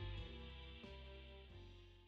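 Background music with plucked notes struck at an even pace, fading out.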